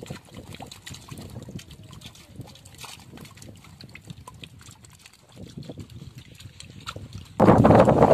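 Many small fish flicking and splashing in a fine-mesh net trap in shallow water: faint scattered ticks, drips and trickles. Near the end a much louder rushing noise cuts in suddenly.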